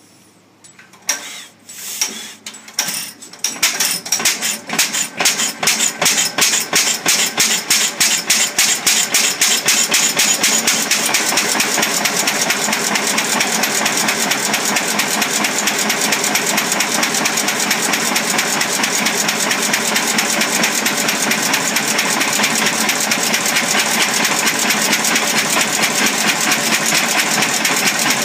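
A Fairbanks Morse 6 hp single-cylinder stationary engine starting: a few irregular sharp strokes, then a beat that quickens over about ten seconds and settles into a steady, even rhythm at its throttle-governed speed of about 375 to 400 RPM.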